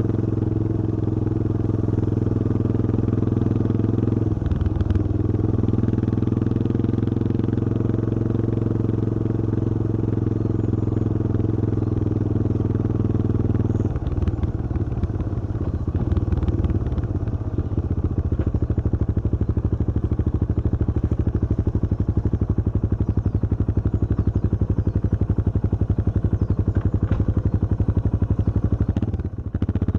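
Yamaha XT225 Serow's air-cooled single-cylinder four-stroke engine running under way at a steady pace. The engine note breaks briefly about four seconds in and again near the end, and from about halfway through it runs with a lower, more pulsing beat.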